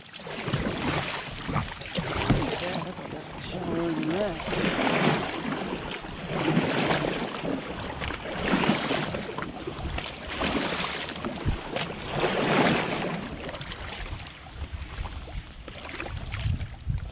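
Kayak paddle strokes in pond water, a swishing splash rising and falling about every two seconds.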